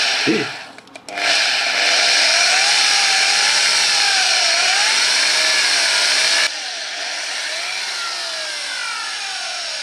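Electric drill with a 3.5 mm bit boring through the plastic handle of a disposable razor, the motor whine wavering up and down in pitch as the bit bites. It stops briefly about a second in, then starts again. It turns suddenly quieter about six and a half seconds in, and its pitch falls near the end.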